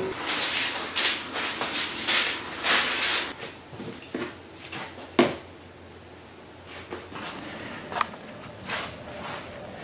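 Hand trowel scooping potting soil from a plastic bag into plastic planter boxes: a run of rustling and scraping for the first three seconds, then scattered knocks of the trowel against the planters, the sharpest about five seconds in.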